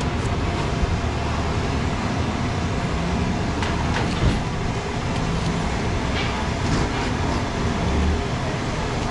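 Steady traffic and street-market background rumble, with a few short knocks and scrapes from a large knife cutting a pineapple, the sharpest about four seconds in.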